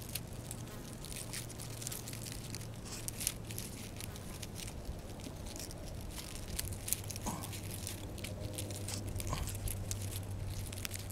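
Dry leaf litter crackling and rustling in quick, irregular clicks, over a low steady hum. Two short faint chirps come about seven and nine seconds in.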